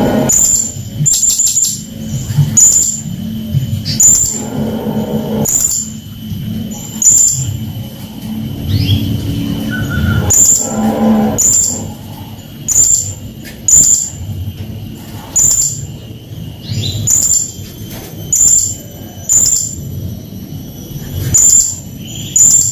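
Blue-crowned hanging parrot (srindit) calling insistently with short, shrill, very high-pitched notes, about one a second, some doubled or tripled in quick succession. A faint steady high whine sits underneath.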